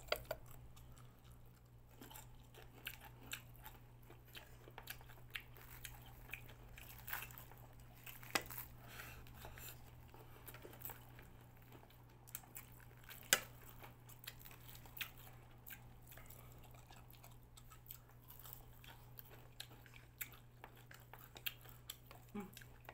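Close-up chewing and biting of deep-fried chicken, with many short crunches of the crispy coating scattered through, the sharpest about halfway. A steady low hum runs underneath.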